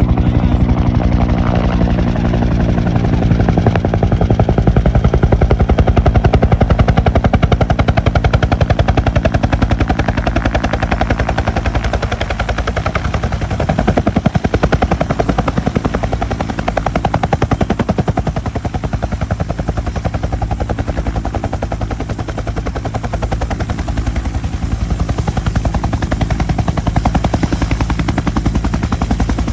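Bell UH-1 Huey helicopter sound: the rotor beating in a fast, steady pulse over the engine's low hum, with a thin high turbine whine.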